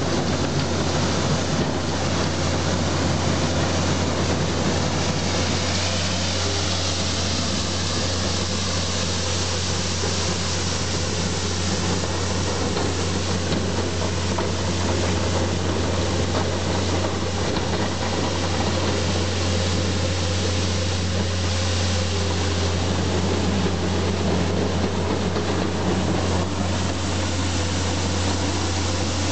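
Skid steer loader's engine running steadily with a constant low hum, under an even broad hiss from the broom bucket's rotating brush sweeping.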